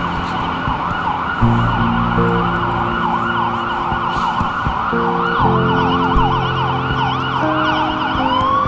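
Emergency-vehicle siren in a fast up-and-down yelp, switching near the end to a slow rising wail, over background music with held low notes.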